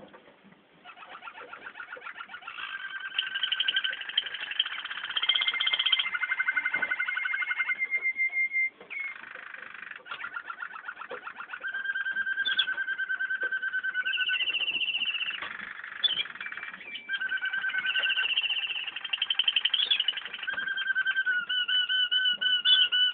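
Waterslager canaries singing a continuous song of long held whistled notes and rapid rolling trills, strung together with little pause. The song starts about a second in.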